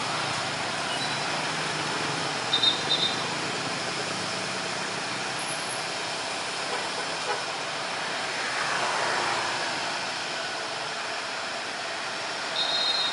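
Steady road traffic of cars and motorcycles, with a vehicle swelling past about nine seconds in. Short, shrill trilled whistle blasts from a traffic officer cut through twice, about two and a half seconds in and again near the end, the loudest sounds here.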